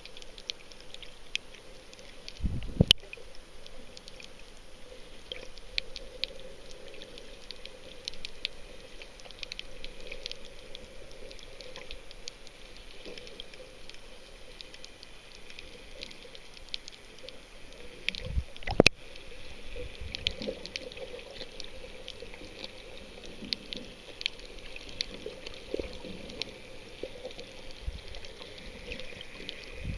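Water sloshing as heard from a camera held just under the surface, with a steady scatter of faint clicks and crackles. Two loud knocks stand out, about three seconds in and about nineteen seconds in.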